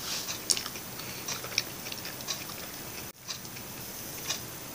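Faint, scattered small clicks over a steady background hiss; the sound cuts out for an instant about three seconds in.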